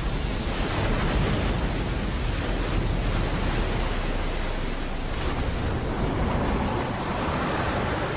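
Airbus A320 skidding across a river as it ditches: a steady rushing of water and spray over a deep rumble.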